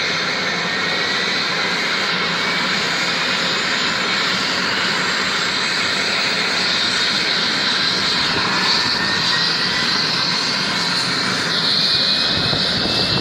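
Medical helicopter's turbine engine and rotor running steadily, with a high turbine whine that slowly rises in pitch; it gets a little louder near the end.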